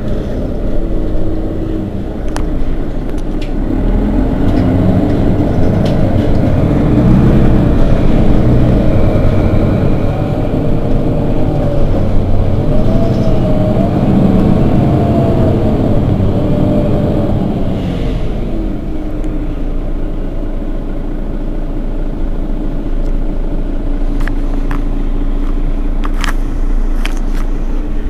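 Mercedes-Benz Citaro Facelift city bus's diesel engine pulling under acceleration, its pitch climbing and falling as it works through the gears. About two-thirds of the way through it eases off to a lower, steady running sound.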